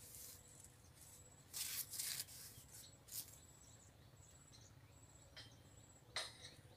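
A few short rustles, the strongest about two seconds in, with a faint high insect whine underneath that breaks off now and then.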